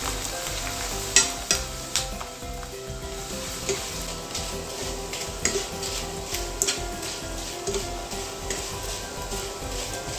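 Krupuk (Indonesian crackers) sizzling in hot oil as they puff up, stirred with a wire strainer that clicks and scrapes against the pan now and then, sharpest about a second in.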